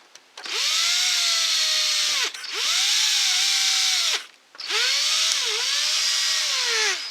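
Cordless drill running in three bursts of about two seconds each, driving bolts home. Each burst spins up quickly, holds with small dips in pitch as the bolt takes up, and winds down when the trigger is released.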